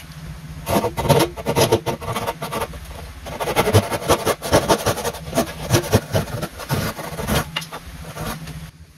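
Japanese pull saw cutting into a hardwood board held in a bench vise: a rasping stroke with each pull, repeated in a quick, uneven rhythm.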